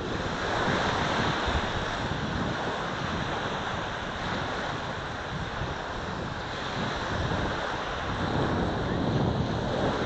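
Small waves washing up on a sandy shore, a steady rush of surf, with wind buffeting the microphone; it swells a little near the end.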